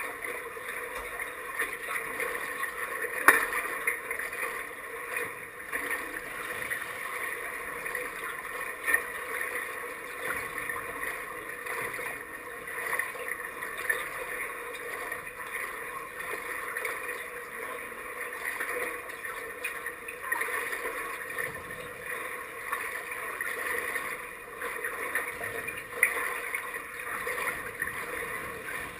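Pool water lapping and sloshing against a half-submerged camera at the waterline, with a steady wash and small ticks. There are a few sharp knocks, the loudest about three seconds in.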